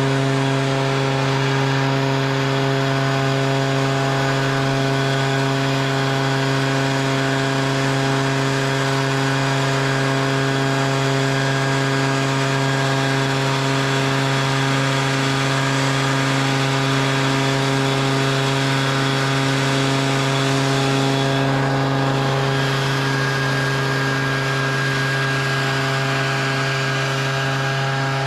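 A small engine running steadily at a constant speed, a level drone that does not change pitch.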